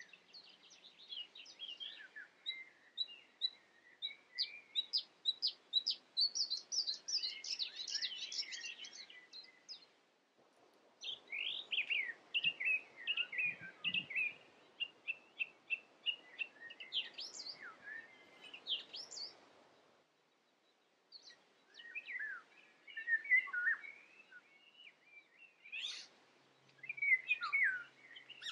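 Songbirds singing: quick chirps and trills, several at once, that break off briefly about ten seconds in and again about twenty seconds in.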